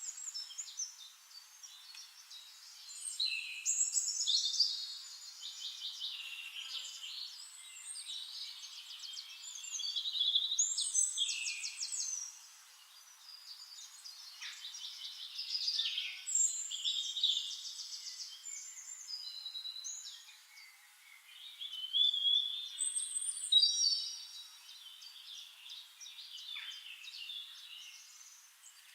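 Several songbirds singing at once, a busy chorus of high-pitched trills and chirps that swells and fades every few seconds.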